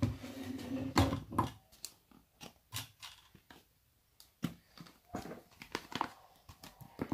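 Irregular clicks and knocks of plastic bottles and containers being handled and set down on a table for slime making, with a brief rougher sound in the first second and a half.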